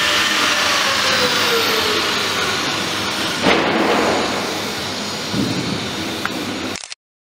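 Steady, loud rushing noise of workshop machinery in a boat-building shed, with one sharp knock about three and a half seconds in. The sound cuts out abruptly near the end.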